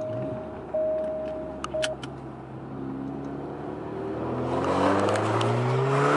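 A car's seatbelt reminder chime beeps for about the first two seconds and stops just after two clicks of the belt buckle. Then the straight-piped Alfa Romeo Giulia's engine pulls under acceleration, heard from inside the cabin, its pitch rising and getting louder toward the end.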